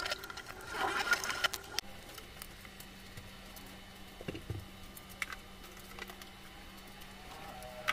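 Light clicks and plastic handling sounds from a plastic bleach spray bottle and its spray cap being worked at a kitchen sink. Then, over a faint steady hum, a short low knock as a plastic storage basket is set down on a shelf, followed by a few light taps.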